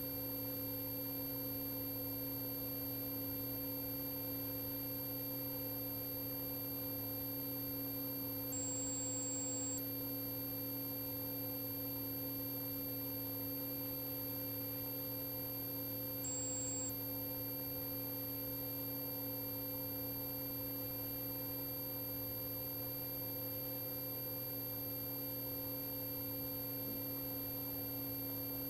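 A steady electronic hum made up of several constant tones, with a brief extra high tone sounding twice, about nine and about sixteen seconds in.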